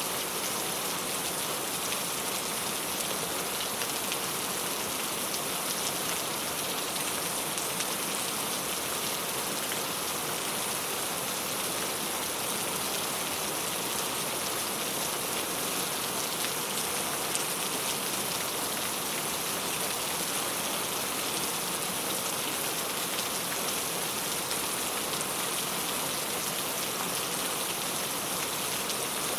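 Steady rain falling on a clay tile roof: an even, unbroken patter of many drops, with no thunder.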